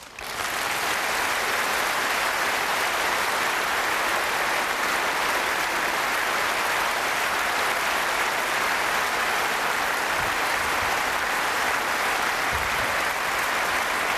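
A large audience applauding steadily, with the clapping starting abruptly and holding at an even level.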